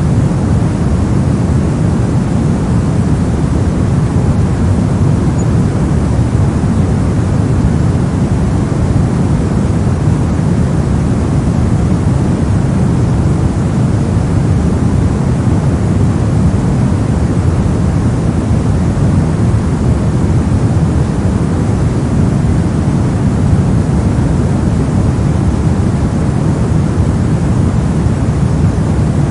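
Steady 'soft' white-noise track: an unbroken, deep hiss weighted toward the low end, with no changes or events.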